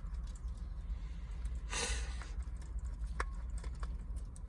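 Small clicks and taps of a Phillips screwdriver working screws out of a car's console switch panel, with a short scrape about two seconds in, over a steady low hum.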